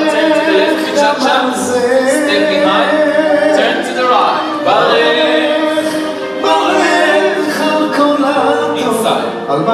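A Hebrew song playing: sung vocals over musical accompaniment.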